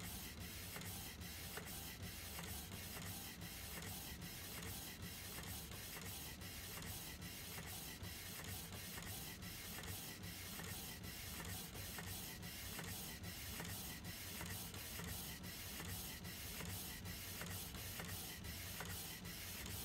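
Canon PIXMA MX922 inkjet printer printing onto a PVC card fed through its card tray: a steady whir of the print mechanism with regular faint clicks, about two or three a second.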